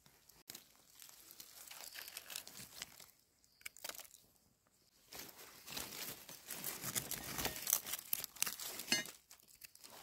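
Dry leaf litter and soil rustling and crunching in irregular bursts as a hand digs out and picks young termite mushrooms. The rustling is busiest and loudest in the second half.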